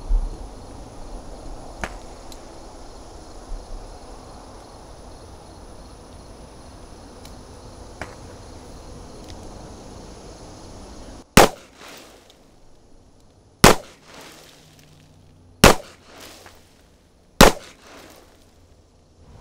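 Four handgun shots, about two seconds apart, starting about eleven seconds in. Each is a sharp crack with a short echo, and before them there is only steady outdoor background with a few faint clicks.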